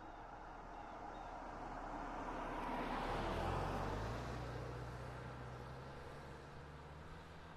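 A single car drives past on the road: its tyre and engine noise builds up, peaks about three and a half seconds in, then fades as it moves away, leaving a low engine hum.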